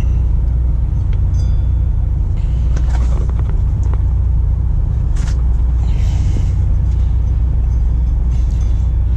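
Steady low rumble of an idling engine nearby, with a few light clicks and short rustles as a serpentine belt is worked over the pulleys by hand.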